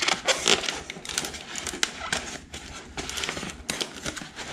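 Polystyrene foam cooler being worked loose inside a tight-fitting cardboard shipping box: foam rubbing and scraping against cardboard, with a string of irregular knocks.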